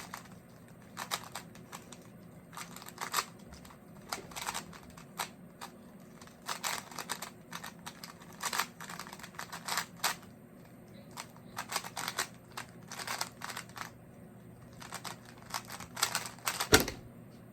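Rubik's cube being turned rapidly by hand during a speedsolve: bursts of quick plastic clicks and clacks as the layers snap round, with short pauses between bursts. Near the end comes one sharper, louder knock.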